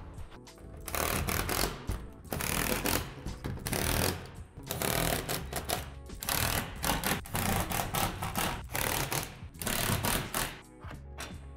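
Cordless drill driving screws into a plastic shed's roof panels and trusses in repeated bursts of about a second each, with background music underneath.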